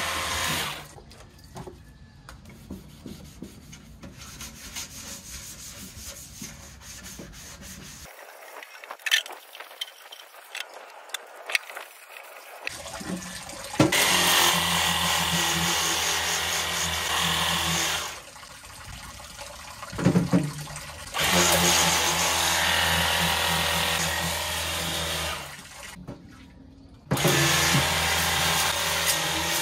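Pressure washer spraying water onto a portable metal charcoal grill, switched on and off: a brief burst at the very start, then a long quieter stretch of small clinks and knocks, then three long bursts of hissing spray over a low motor hum, each stopping suddenly.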